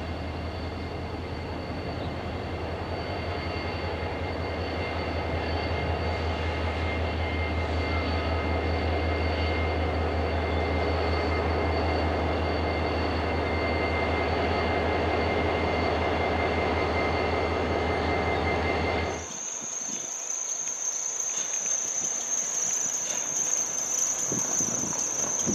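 CSX SD40-3 diesel locomotive's EMD two-stroke V16 engine running, a steady low rumble as it approaches the crossing, with faint steady high tones over it. About 19 s in, the rumble cuts off abruptly and a steady high insect buzz takes over.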